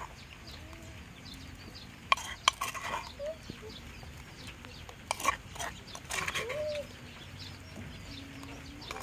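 Chickens clucking with short, separate calls, the loudest a little past halfway. A few sharp clicks come about two seconds in and again about five seconds in.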